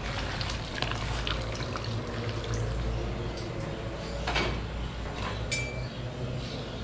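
Metal slotted spoon and ladle clinking and scraping against a large aluminium cooking pot, with broth sloshing and dripping as meat pieces are lifted out. Scattered sharp clinks, over a steady low rumble.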